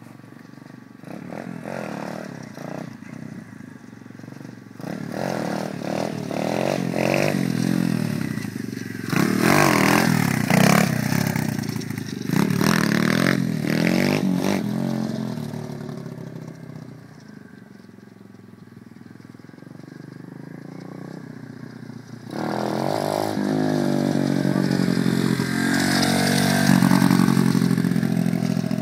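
125cc pitbike's single-cylinder engine revving up and easing off over and over as it is ridden on the back wheel. It grows loud as the bike comes close, fades in the middle, and jumps back up suddenly near the end.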